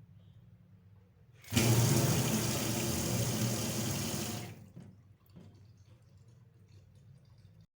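Kitchen water tap turned on: water runs hard into the sink for about three seconds, starting suddenly and dying away as it stops.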